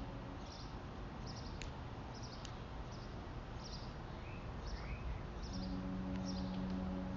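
A pause between blasts of the fire company's 1940s Clark Cooper ship/train/fog air horns, filled with birds chirping in short, regular calls. About five and a half seconds in, the horns sound again as one steady, deep, multi-toned blast.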